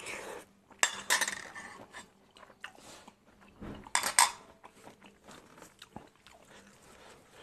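Close-miked eating: a mouthful of stir-fried angled luffa with egg being taken and chewed, with a metal spoon clinking and scraping against the plate. The loudest bursts come about a second in and again about four seconds in.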